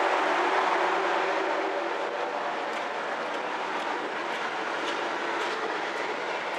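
Steady drone of the car ferry Kuniga under way, engine and hull noise with a faint low hum running through it, easing slightly over the first couple of seconds. A few light ticks come in the second half.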